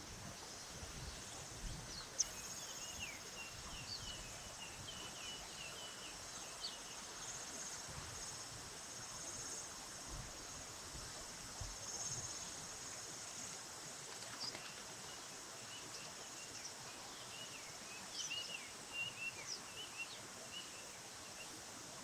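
Steady high-pitched insect trilling, with two flurries of short chirps from small birds: a couple of seconds in, and again near the end.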